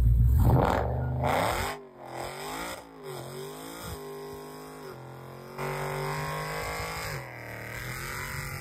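A drag car's engine revving hard, with a loud low rumble for the first second and a half. The pitch then rises and falls several times, holds steady for about a second and a half near six seconds in, and climbs again near the end, as the car does a smoky burnout.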